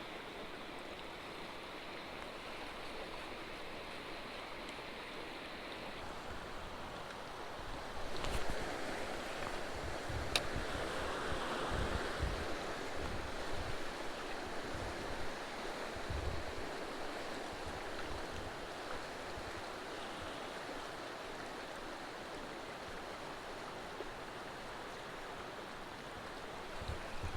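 Creek water running steadily, with wind buffeting the microphone for several seconds from about eight seconds in and one sharp click in the middle of it.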